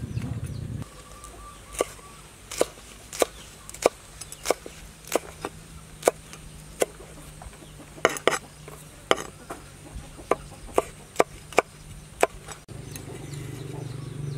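Cleaver chopping red chilies on a wooden chopping block: about twenty separate sharp knocks, roughly one every half second with a few quick doubles. A low steady noise cuts off under a second in and comes back near the end.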